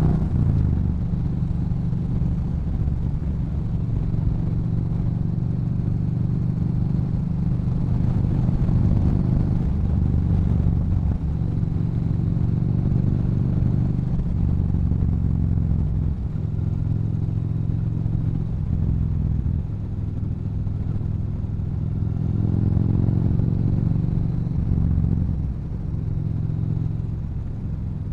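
Yamaha Bolt's air-cooled V-twin through a Cobra aftermarket exhaust, running steadily at cruising speed. The engine note shifts a few times as the throttle changes and rises briefly a little before the end.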